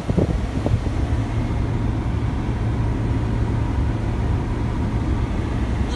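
Steady road and engine noise heard inside a car's cabin while driving at highway speed, with a constant low hum.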